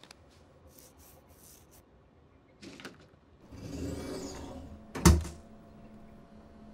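Mirrored bathroom cabinet door being swung: a rubbing swish, then one sharp knock as it shuts about five seconds in. Faint light clicks come before it, from fastening bra hooks.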